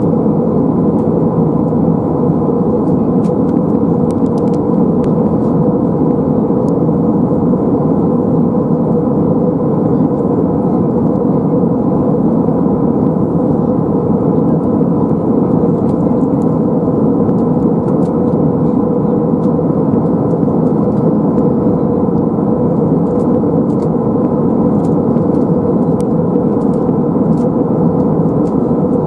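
Steady in-flight cabin drone of an Airbus A320-232 with IAE V2500 engines, heard from a window seat: engine and airflow noise with a faint steady hum in it.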